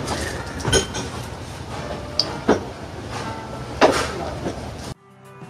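Utensils knocking against a lacquered bowl while eating: a few sharp knocks over steady background noise. The sound cuts off just before the end and music begins.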